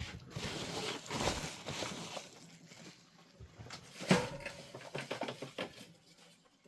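Handling and rummaging noises: light rustling, clicks and small knocks as small model parts and bags are moved about, with one louder knock about four seconds in.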